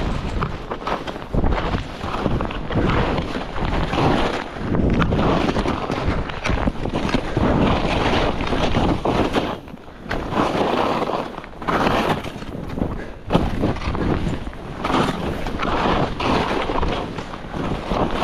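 Skis scraping and carving over snow in repeated swells, mixed with wind rushing over the microphone during a downhill run.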